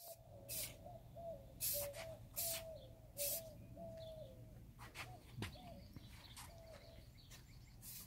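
An aerosol can of black spray paint hissing in a few short bursts, mostly in the first half. A bird calls over it in a quick run of short, low notes, then only now and then.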